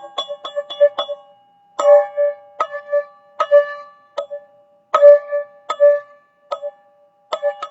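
Teal ZenTube struck repeatedly, its few tuned notes ringing on. A quick run of strikes, then a short pause, then slower single strokes that ring out, and another brief pause before a quick run starts again near the end.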